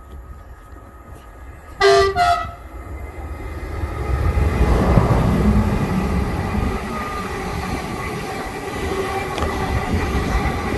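Greater Anglia Stansted Express train sounding two short horn blasts about two seconds in. Its rumble and rush then build as it passes through the station at speed.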